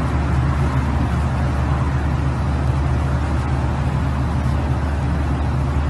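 A motor running steadily: an even, loud low rumble with a hiss above it.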